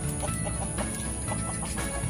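Native chickens clucking in short calls, over background music.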